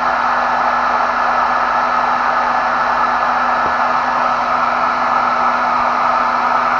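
Hair dryer running on its very high speed setting: a steady rush of air with a steady low hum underneath.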